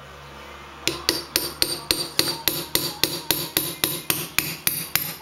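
Hammer striking a punch held against the gears on a Toyota T50 gearbox mainshaft, steel on steel, working the middle bearing and first gear loose. Rapid, even blows at about four a second with a bright metallic ring, starting about a second in.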